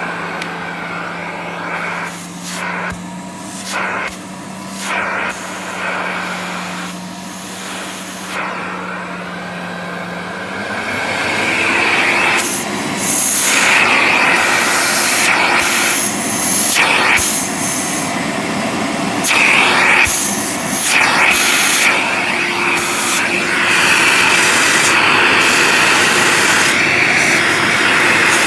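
Ariete 1700 W vacuum cleaner running with a steady motor hum and rushing air; about ten seconds in the motor speeds up, its pitch rising and the sound growing louder, with the air rush coming and going in short spells.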